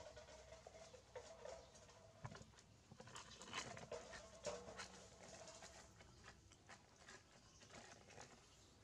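Faint, irregular clicks and taps of a puppy licking at a small clear plastic tub.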